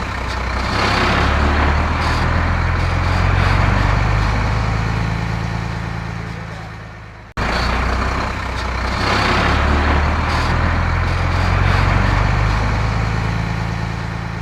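Heavy diesel engine of a construction vehicle running and revving up and down: a recorded sound effect of about eight seconds, played twice in a row with an abrupt cut between the two passes.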